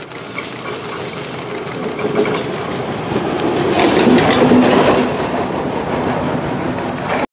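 Uerdinger diesel railbus passing close by: its underfloor diesel engine running with a steady hum, and its wheels clicking over the rails. The sound grows louder as it approaches and is loudest as it passes, about four seconds in.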